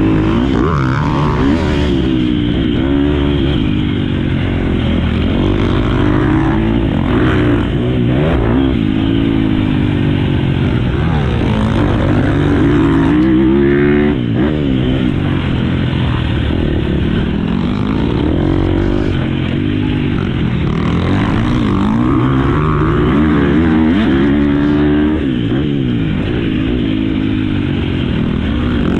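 Husqvarna FC 250 four-stroke single-cylinder motocross bike being ridden hard. The engine pitch climbs and drops over and over, every couple of seconds, as the throttle is opened and shut.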